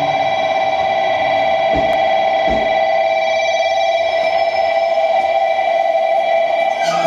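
A loud, steady high-pitched electronic tone with a slight warble, holding without a break. Two dull low thumps come about two seconds in.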